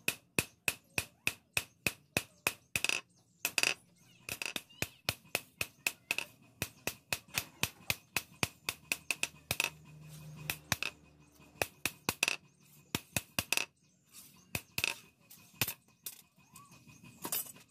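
Hand hammer striking a perforated steel blade, cut from a motorcycle disc brake rotor, against a steel anvil block: quick metal-on-metal blows, about three a second, each with a short metallic ring, with two brief pauses.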